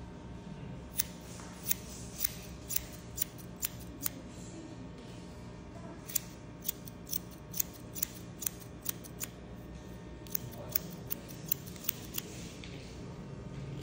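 Hairdressing shears snipping hair over a comb, with sharp snips about two a second in three runs separated by short pauses.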